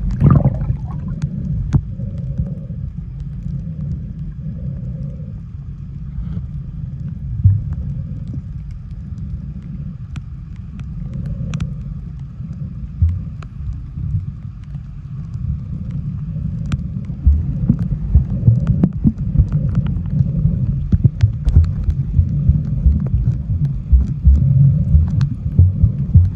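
Steady low rumble of a boat's engine running underway, with scattered short knocks.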